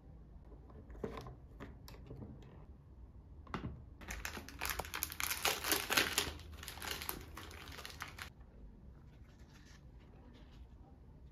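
Packaging being crinkled and handled. A few light clicks and taps come first, then a dense burst of crinkling from about four seconds in that stops suddenly about four seconds later, leaving faint rustles.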